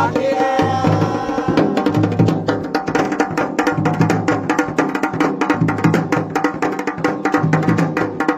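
Garhwali dhol and damau drums playing a fast, dense traditional rhythm, the small damau's quick stick strokes over deep booming dhol strokes that come every second or two.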